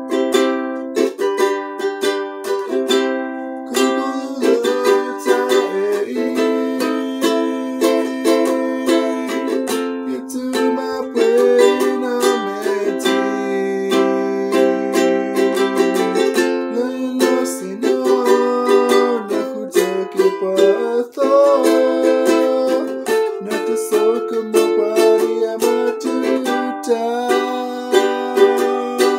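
Ukulele strummed in steady chords, with a man singing along.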